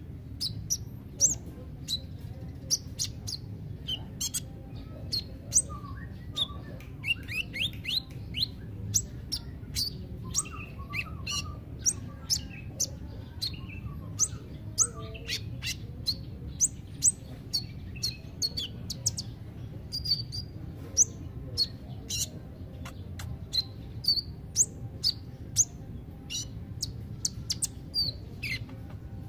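Male Van Hasselt's sunbird (kolibri ninja) singing: a quick, uneven string of high, sharp chirps and short twittering sweeps, over a steady low background hum.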